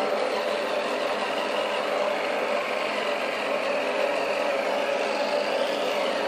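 Electric toothbrush running with a steady buzz while brushing teeth, the brush head in the mouth.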